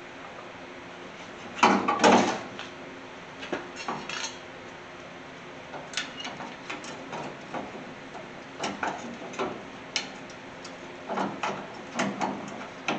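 Irregular clinks and knocks of a rectangular headlight being handled and pushed into its metal mounting bucket, the loudest clatter about two seconds in and more scattered through the rest.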